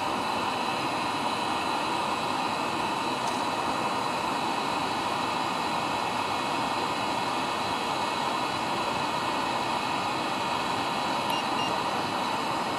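Webasto diesel-fired water heater running at full burn, with a freshly cleaned burner: a steady rushing hiss from its blower and combustion, with thin, steady high whines over it.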